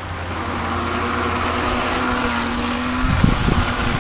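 Electric motor of a Tornado RC 16-inch toy boat (9.6-volt) whining as the boat runs toward the bank, growing louder as it nears. Irregular low rumbling cuts in about three seconds in and is the loudest thing by the end.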